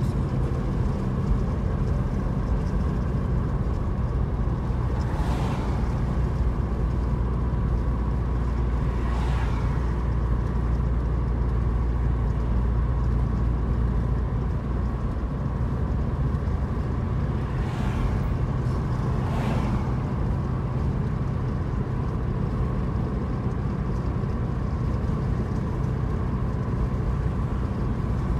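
Steady road and engine noise inside a moving car, with a constant low hum. Oncoming cars pass four times, each with a brief whoosh, twice in the first ten seconds and twice close together later on.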